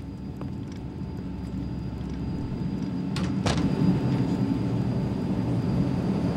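Steady low drone of an airliner cabin in flight, swelling up over the first few seconds and then holding, with two sharp clicks about three seconds in.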